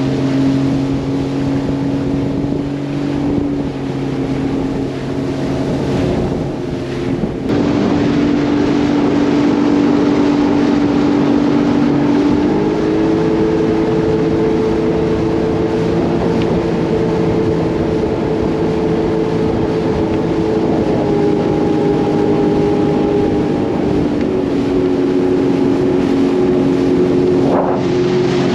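Sea-Doo GTX 170 personal watercraft's three-cylinder four-stroke engine running steadily at cruising speed, with wind on the microphone. The engine note steps up in pitch partway through and settles back lower near the end.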